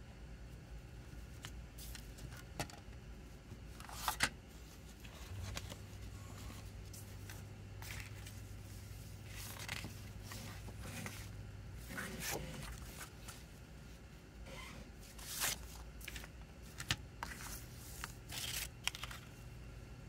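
Plastic CD jewel case, discs and paper booklet being handled: scattered soft clicks of the plastic case and rustles of paper, with a faint low hum for several seconds in the middle.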